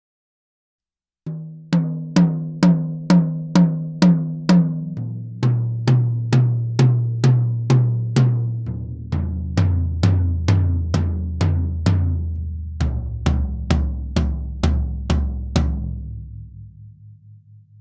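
A four-piece set of clear-headed toms (10- and 12-inch rack toms and two floor toms) struck in single strokes about twice a second, working from the highest tom down to the lowest in four steps of roughly seven hits each, with the low floor tom left to ring out and fade near the end. Each drum is damped by cotton balls resting on its bottom head, which shortens the sustain and tames the overtones while keeping the open tone. The recording is raw and unprocessed.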